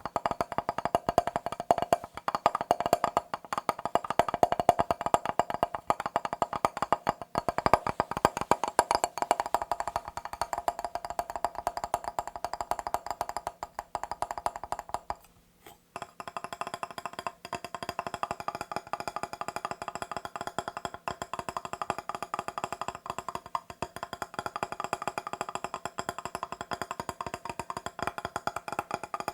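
Fast, continuous tapping on a glass mirror: a rapid stream of sharp taps with a slight glassy ring. The taps stop briefly just past halfway, then resume with a thinner sound.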